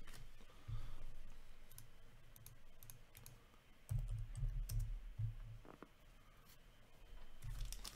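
Hockey trading cards being handled and flicked through by hand: faint, scattered light clicks of card stock, with soft handling bumps from about four seconds in.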